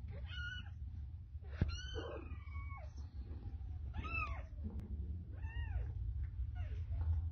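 Young kittens mewing: about five high, thin calls, each rising and falling in pitch, one drawn out and sliding down. A steady low rumble runs underneath, with a single click near the middle.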